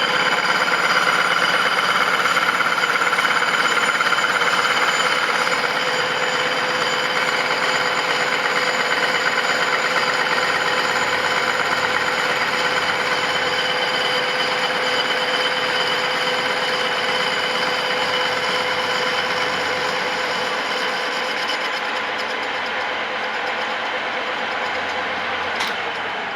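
Machine running with a loud, steady ringing made of several fixed tones, slowly fading; the ringing is blamed on a hole in the part. A single sharp click near the end.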